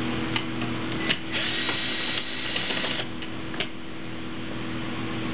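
Cordless drill with a 7 mm socket running for about a second and a half, backing out a dashboard screw above the instrument cluster. A few sharp clicks of tool and plastic handling come around it, over a steady low hum.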